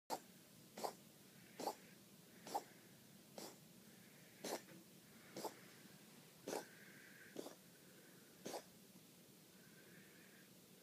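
A cat coughing in a repeated string of about ten short hacks roughly a second apart, a cough the owners take for a possible feline asthma attack.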